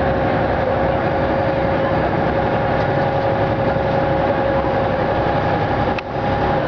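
A boat's engine running with a steady drone and a constant whine, with a short click about six seconds in.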